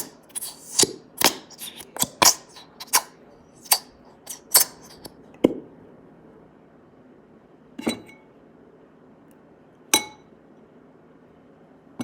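A utensil clinking against a glass container while slime is stirred: a quick run of about a dozen sharp clinks over the first five seconds, then two single clinks later on.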